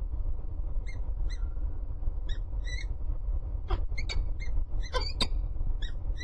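Short, high bird calls repeated every fraction of a second, some in pairs, with a few sharp squeaks that fall quickly in pitch about four to five seconds in, over a steady low rumble of city traffic.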